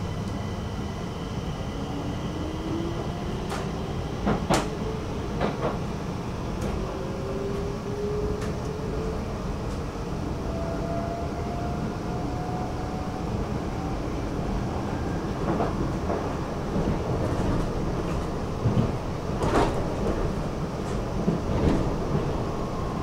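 Stockholm metro train running, heard from inside the car: a steady rumble with a faint motor whine rising in pitch as the train gathers speed. Sharp clicks and knocks come now and then, the loudest about four and a half seconds in and again near the end.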